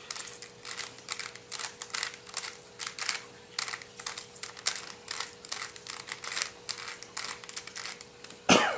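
Plastic 3x3 Rubik's cube being turned quickly by hand, its layers clicking and clacking in a fast, irregular run as a solving algorithm is worked through.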